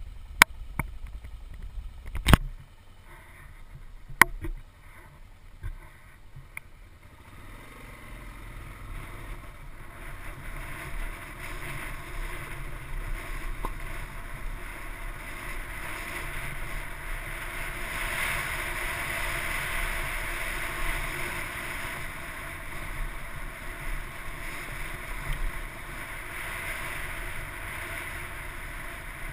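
Off-road motorcycle heard from a helmet camera on a rocky mountain track: a few sharp knocks in the first several seconds, then a steady rushing ride noise that builds from about eight seconds in as the bike gets under way.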